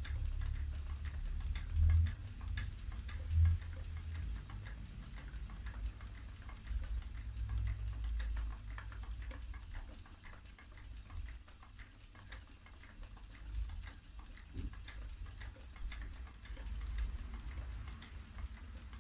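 Wooden treadle spinning wheel turning, its wheel and treadle making light ticking and clicking, with a few low thumps in the first few seconds.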